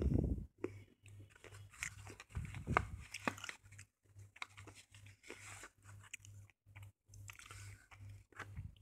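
Slate pencil being bitten and chewed: irregular sharp crunches of the soft stone breaking between the teeth, loudest just after the start and again a little under three seconds in.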